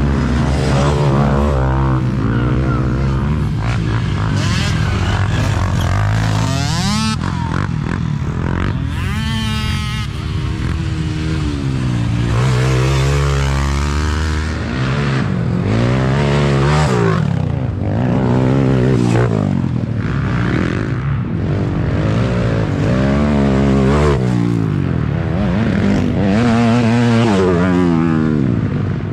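Youth race quads' engines revving hard and easing off as the ATVs pass one after another, their pitch climbing and dropping over and over.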